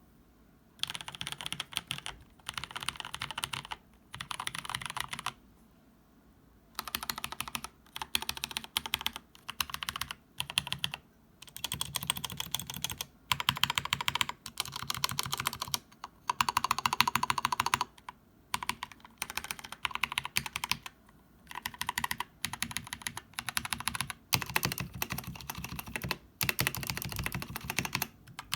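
Typing on a stock Keychron K6 mechanical keyboard with Gateron Brown switches, stock keycaps and an aluminum case: fast runs of key clicks in bursts of a second or two, broken by short pauses and a longer one about five seconds in.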